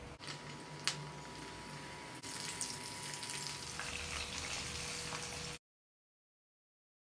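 Flour-coated chicken pieces deep-frying in hot oil, a steady sizzling hiss, with one sharp click about a second in. The sound cuts off abruptly to dead silence for the last second and a half.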